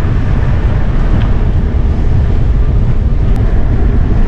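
Steady, loud wind buffeting on the microphone of a camera riding along a cycle path, a constant low rumble with no break.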